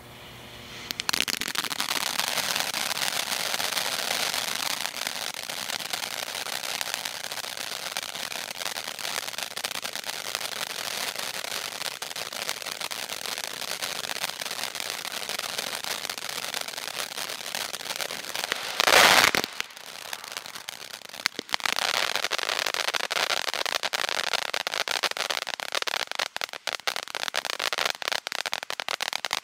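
Red Rhino 'Poking the Bear' ground fountain firework spraying sparks with a steady loud hiss that starts about a second in. A brief louder burst comes a little past halfway, followed by a short lull. The hiss then resumes, with dense crackling toward the end.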